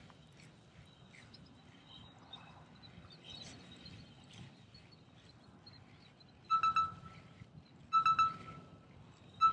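Faint outdoor background with a few faint bird chirps, then a loud, steady beeping tone that sounds three times, about every second and a half, starting about two-thirds of the way in.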